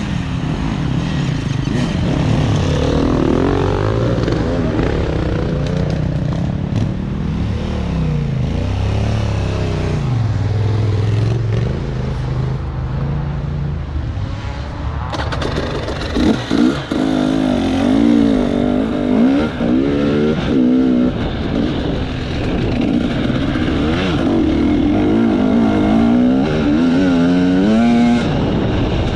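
Off-road enduro motorcycle engine running under load, its pitch rising and falling with the throttle. About halfway through the note shifts higher and keeps revving up and down.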